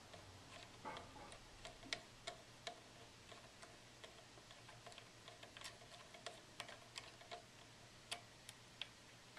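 Faint, irregular light clicks and taps, a few a second, from hands handling small metal parts at the needle plate of a Singer 20U industrial sewing machine while the zigzag throat plate and its screws are fitted. A low steady hum runs underneath.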